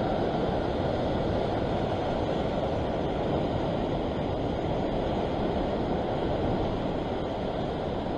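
Low, steady rush of wind on the microphone and surf washing against the rocks below a sea cliff, with no distinct events.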